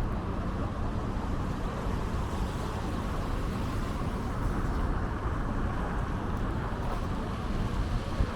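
City street traffic noise: a steady wash of vehicles running and passing, with no single event standing out.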